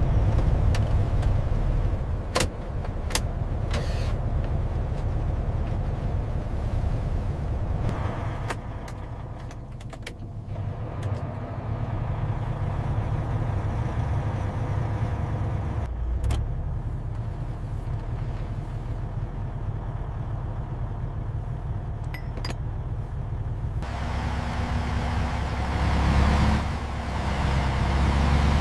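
A heavy truck's engine running with a steady low rumble, with a few sharp clicks and knocks. The rumble grows fuller and louder about four seconds before the end.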